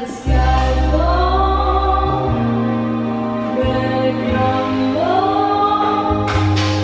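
Recorded waltz music playing: a singing voice with long gliding notes over held deep bass notes, with a short noisy burst near the end.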